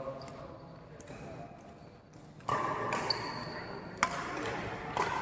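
Badminton rackets striking a shuttlecock in a men's doubles rally: sharp hits about a second apart in the second half.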